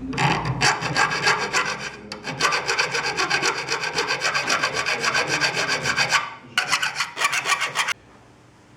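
CNC machine cutting, a fast rasping rhythm in three spells with short breaks about two seconds and six and a half seconds in, stopping shortly before the end.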